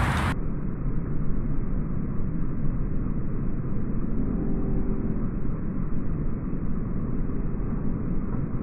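Low, muffled rolling rumble of distant thunder, continuing without a sharp crack.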